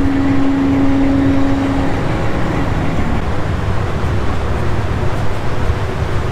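Steady, loud rumble and rush of a car ferry under way, heavy in the low end, with a steady hum that stops about two seconds in.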